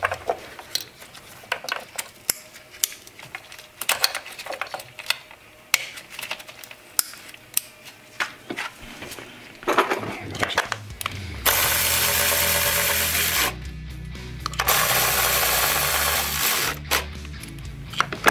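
Small plastic clicks and knocks as coil-on-plug ignition coils are rocked and pushed down into the spark plug wells. About ten seconds in, background music with a steady bass beat starts, with long loud stretches of hissing noise.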